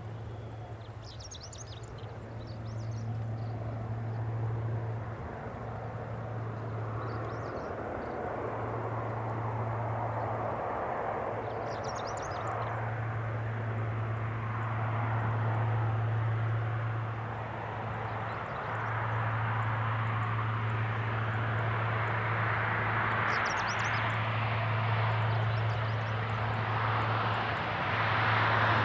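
Saab 340B twin-turboprop airliner on approach, its GE CT7 turboprop engines and propellers droning louder and louder as it nears, over a steady low hum. Short high chirps, like birds, come a few times.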